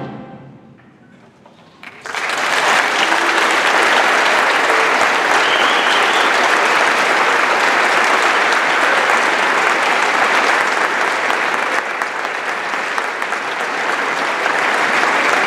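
A concert band's last chord fades into the hall's reverberation, then about two seconds in an audience breaks into applause that carries on steadily.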